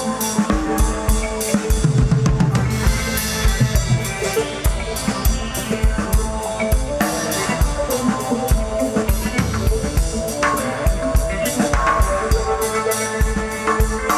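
Live instrumental psychedelic rock band playing: a Tama drum kit keeps a steady, busy beat of bass drum and snare hits under sustained electric guitar, bass guitar and keyboard notes.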